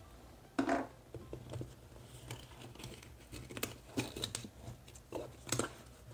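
Handling noise: hands rustling against the fabric and elastic pockets of a zippered carrying case while tucking a small plastic accessory into it, with scattered light clicks and taps. A sharper knock comes about half a second in.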